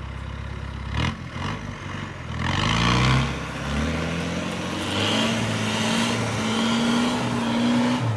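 Land Rover Defender engine revving hard under load as it climbs a steep, muddy, rutted slope. The engine pitch rises from about two and a half seconds in and then holds high. There is a sharp knock about a second in.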